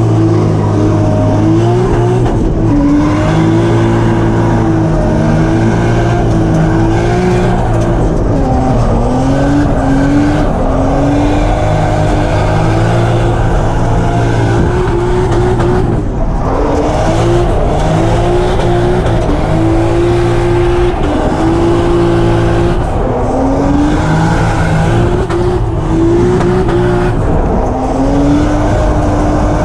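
Drift car's engine revving up and down again and again over tyre squeal while drifting.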